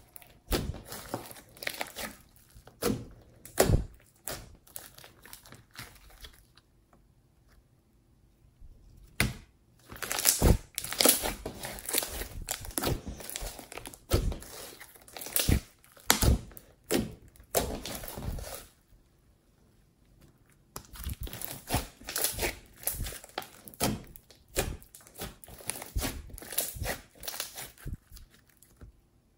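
Hands squishing, folding and stretching a glossy slime: rapid sticky crackles and little pops of air trapped in the slime. It comes in bursts and stops twice for a couple of seconds.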